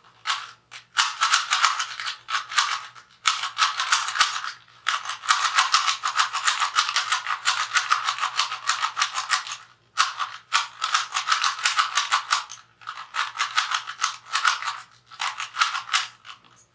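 A regular Rubik's cube, not a speed cube, turned rapidly over and over, giving a dense run of plastic clicking and clacking that breaks off briefly about five times.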